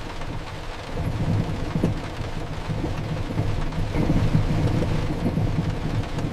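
Storm-and-train sleep ambience: heavy rain falling over a continuous deep rumble, which swells slightly about four seconds in.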